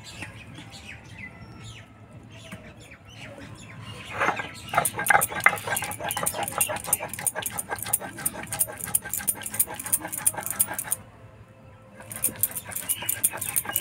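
Stone pestle rolled rapidly back and forth on a flat stone grinding slab (shil-nora), grinding water-soaked semolina into a paste. It gives a fast, even scraping rhythm that starts about four seconds in, stops for about a second near the end, then resumes.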